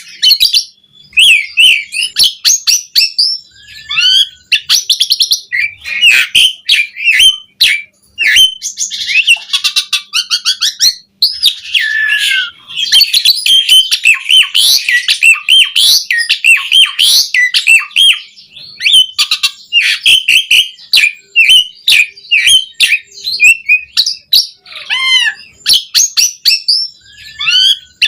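Asian pied starling (jalak suren) singing a long, rapid, varied song of whistles, gliding notes, clicks and chatter, packed with mimicked phrases.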